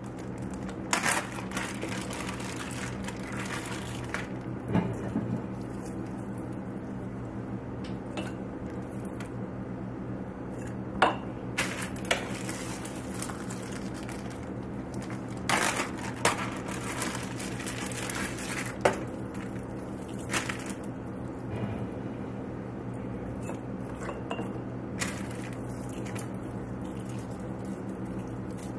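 Plastic zip-top freezer bags crinkling and rustling as wet, thawed roasted red peppers are squished and pulled out of them, with scattered clinks from glass mason jars. A steady low hum runs underneath.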